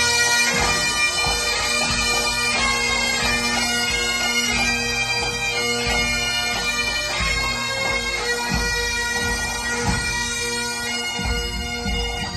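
Bagpipes playing a melody over their steady, unbroken drone.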